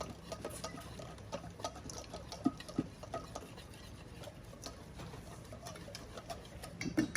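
A marinade of oil, vinegar, lime, honey and spices being stirred in a bowl, with faint, irregular clicks and taps of the utensil against the bowl and one slightly louder knock about two and a half seconds in.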